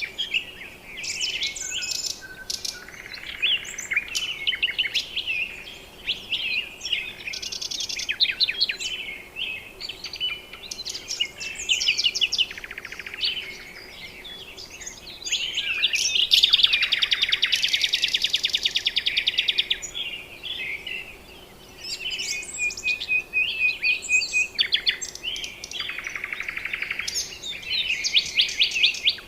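Several birds calling and chirping at once: short whistles, chirps and fast buzzy trills overlapping, with the loudest, densest trill about halfway through.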